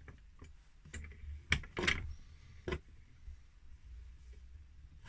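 Several small clicks and knocks of metal pen kit parts being handled and pressed together in a homemade wooden pen press, most of them in the first three seconds, over a faint steady low hum.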